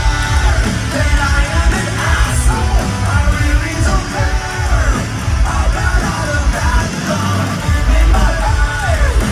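Live rock band playing loud, with heavy bass and a vocalist yelling and singing over it.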